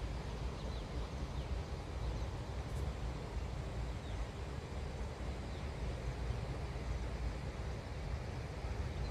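Wind buffeting the microphone, a steady low rumble that flickers in strength, with a few faint bird chirps.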